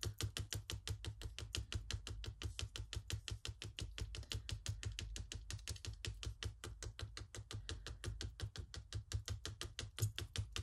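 Rapid, even tapping of a white pen's tip on card as snow dots are dotted on, about seven light taps a second.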